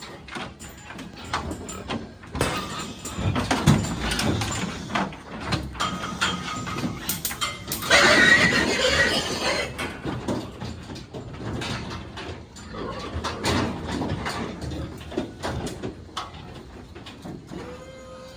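Pigs squealing and grunting, with scattered knocks and clatter. The loudest burst of squealing comes about eight seconds in.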